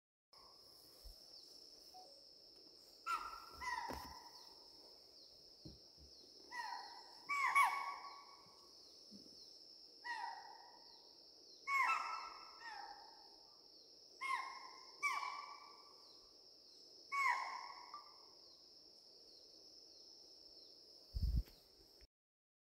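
Wild animal calls: about ten short, loud cries, each falling slightly in pitch, often coming in pairs every three seconds or so. A steady high-pitched buzz runs beneath them, and there is a dull bump near the end.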